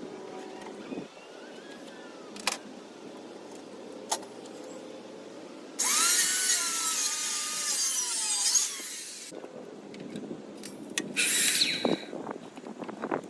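Power tool working wood: a few sharp knocks, then a burst of about three and a half seconds in which the motor's pitch sags and falls under load, and a shorter second burst near the end.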